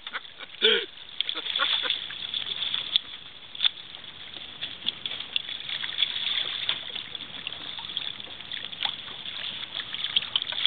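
Water splashing and sloshing alongside a boat's hull as a sturgeon is handled at the surface, a run of many small crackling splashes and drips. A short voice sounds about a second in.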